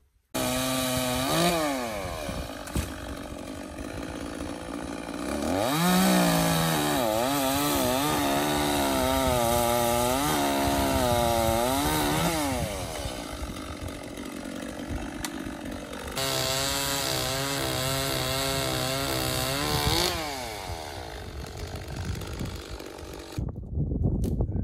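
Chainsaw revving up and running at full throttle, its pitch wavering under load as it saws through a branch in two long passes, a first cut and then a finish cut, with lower running between them. It drops back to idle shortly before the sound breaks off near the end.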